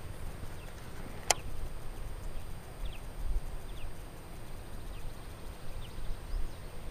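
Open-air ambience on a fishing boat: a steady low wind rumble on the microphone with faint short high chirps scattered through it, and one sharp click about a second in.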